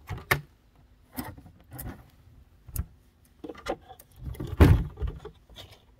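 Irregular knocks, clicks and rustles of handling while reaching into a wooden pond-equipment housing to get at a switched socket. The loudest is a thump about four and a half seconds in.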